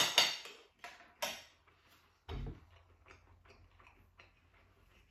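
Metal cutlery clinking against a plate, three sharp clinks in the first second and a half, then a dull thump a little over two seconds in, followed by faint light ticks.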